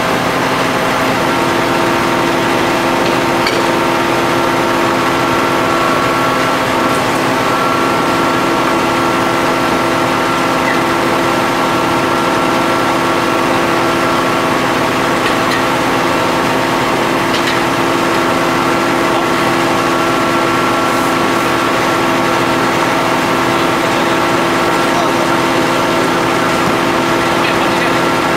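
Hydraulic power pack of an H-beam pile extractor running steadily, an engine-driven pump with a constant whine over a dense mechanical hum; a steadier pitched whine sets in about a second in, as the hydraulics come under load.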